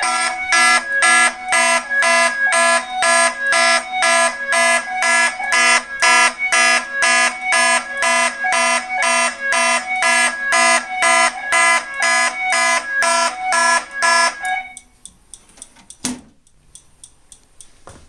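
Fire alarm horn-strobes and the Wheelock E70 speaker sounding together in a rapid pulsing alarm of several stacked tones, about three blasts a second. About 15 seconds in they cut off as the system is silenced, and a single knock follows a second later.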